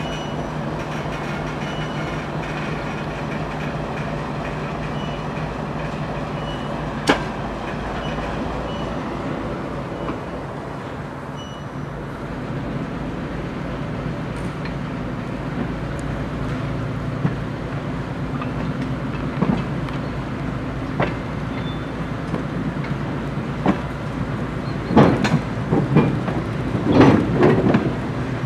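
ChME3 shunting locomotive's diesel engine running steadily while it hauls a string of old DR1A diesel-train cars slowly along the track. Wheels and couplings knock and clank over rail joints, with a single sharp knock early and a run of louder clanks near the end.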